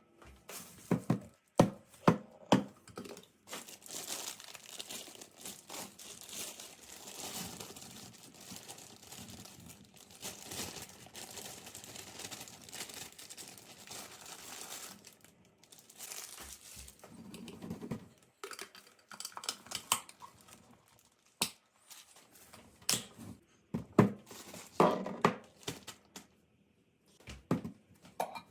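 Packaging being handled: crinkling and rustling for a long stretch, with sharp knocks of items being set down near the start and again in the second half.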